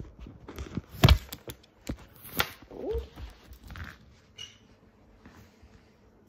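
Knocks, clicks and scuffs of a handheld camera being moved and grabbed while an African grey parrot clambers onto it. The loudest is a thump about a second in, followed by a sharp click a little over a second later and a short low call near three seconds in. After that it goes quiet.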